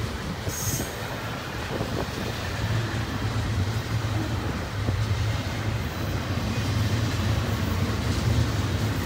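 Double-stack intermodal freight cars rolling past, a steady low rumble of steel wheels on rail, with a brief high-pitched squeal about half a second in.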